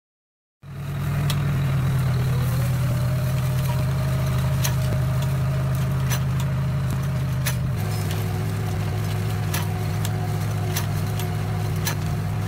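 Tractor engine running steadily while working a hydraulically driven under-vine blade hoe through the soil, with scattered sharp clicks over it. The sound cuts in about half a second in, and the engine note drops slightly about eight seconds in.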